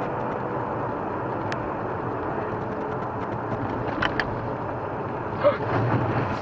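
Steady road and engine noise of a car driving at city speed, heard from inside the cabin through a dashcam, with a few faint clicks and a short sharp knock about five and a half seconds in.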